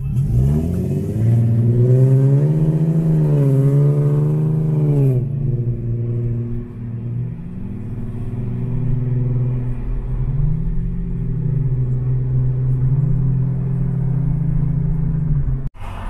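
Infiniti G37x's 3.7-litre V6 through ISR test pipes and a custom single-exit exhaust, accelerating with the revs swinging up and down for about five seconds, then running at lower revs that rise and fall slowly while cruising.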